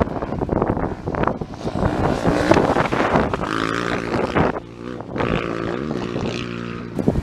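Wind buffeting the microphone, then an off-road rally motorcycle's engine revving hard as the bike comes past, breaking off briefly about halfway through and climbing again in pitch with each gear.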